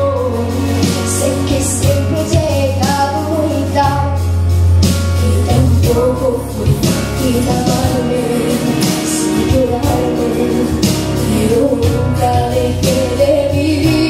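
A young woman singing a pop song live into a hand-held microphone, with piano accompaniment; a low note is held under the voice for about the first six seconds.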